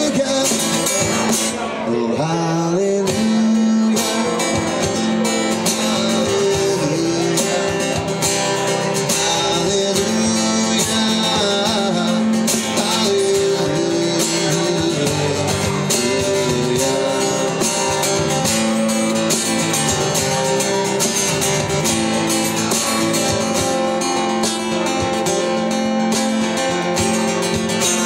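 Live band music: an instrumental passage led by guitars, playing steadily with no sung words.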